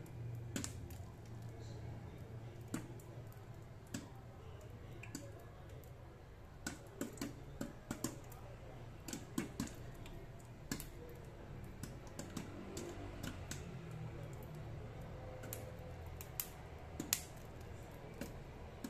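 Popcorn popping under the glass lid of an electric pot: scattered sharp pops with irregular gaps, a few quick runs of pops, over a low steady hum. The pot is already full of popped corn, so these are the last kernels popping as the batch finishes.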